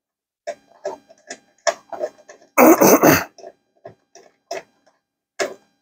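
Scattered clicks and knocks from hand tools and bolts as the Goldwing's rear-shock preload adjuster pump is unbolted, with a louder scraping rustle about two and a half seconds in.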